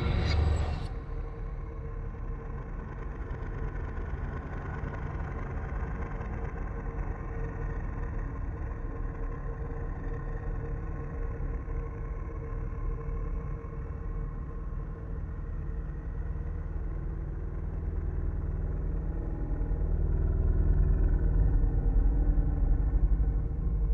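Dark ambient drone: a steady low rumble with a faint held hum above it, swelling louder over the last few seconds. A brighter, louder sound cuts off about a second in.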